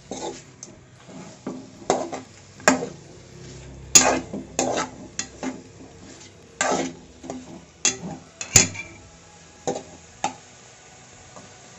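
Metal spoon scraping and knocking against a pan as masala-coated pork pieces are stirred, in about ten irregular strokes. The stirring keeps the meat from catching on the bottom as the pan heats.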